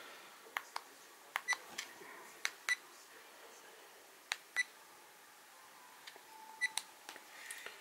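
Evolio iSmart 4K action camera's key-tone beeper giving short, high confirmation beeps as its touchscreen is tapped through the settings menu. About a dozen beeps, mostly in quick pairs, with gaps of a second or two between them.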